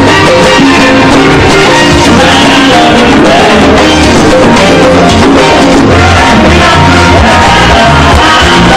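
Music with singing over a steady, pulsing bass line, loud and even throughout.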